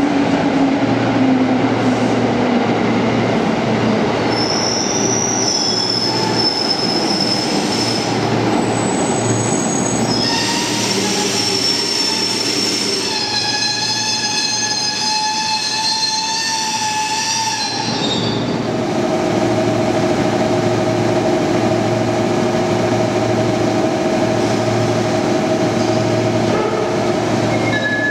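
JR East 205 series 3100 electric commuter trains running through an underground station, echoing in the tunnel. The motor tone falls as a train slows, and high, ringing wheel squeal comes in from about four seconds and grows loudest in the middle before breaking off abruptly. A steady running hum with a mid-pitched motor tone follows.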